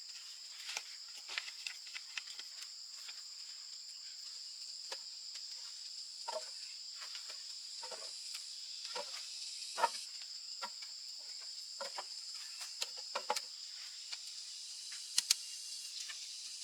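Steady high-pitched drone of insects, holding two even tones, with scattered irregular clicks and knocks over it; the loudest are a sharp double click about fifteen seconds in.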